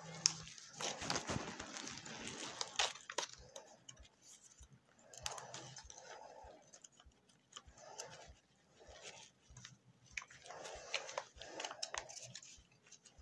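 Pokémon trading cards being handled and flipped through by hand: quiet rustling and sliding of card on card, with many small clicks.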